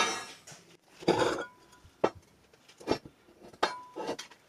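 Parts of a rusty cast-iron Wilton bench vise knocking and clinking against each other and the bench as they are handled and set down. There are about five separate metal knocks, some with a short ring.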